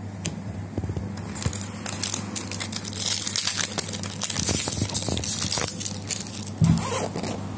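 Trading-card booster pack being torn open, its wrapper crinkling and crackling in quick irregular rustles, with a short thump near the end.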